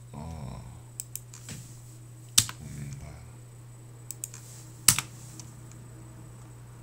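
Computer keyboard keystrokes: a handful of scattered key presses, two of them sharp and loud about two and a half and five seconds in, over a steady low hum.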